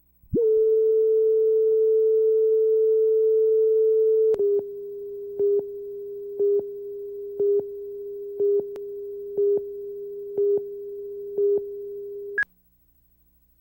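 Tape-leader test tone and countdown beeps: a loud steady tone for about four seconds, then a quieter steady tone with a louder beep on each second of the countdown, eight beeps in all. It ends on one short, higher pip and cuts off suddenly.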